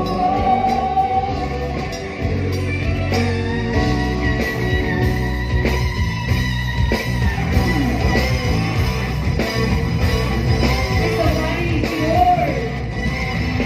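Live rock band playing loud: electric guitar over bass and drums, with singing.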